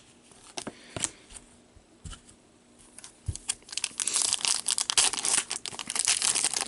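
Foil trading-card pack wrapper being torn open and crinkled. Before that, a few light clicks and taps, as cards are handled.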